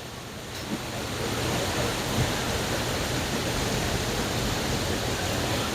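Waterfall: a steady rush of falling water that grows a little louder over the first second or so, then holds.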